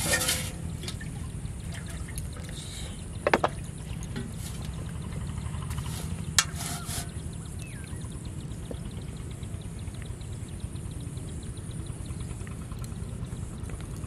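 Steady low outdoor rumble with a few brief splashes of water, about three seconds in and again around six seconds in.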